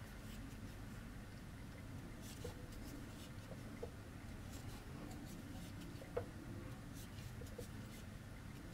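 Faint scratchy rustling of yarn being worked stitch by stitch with a crochet hook, with a few soft ticks.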